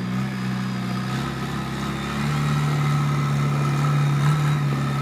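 Diesel engine of a JCB machine running steadily. Its note shifts about a second in, and it gets a little louder just over two seconds in.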